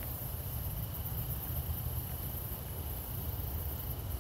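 Insects chirring steadily in a thin, high, continuous tone over a constant low rumble.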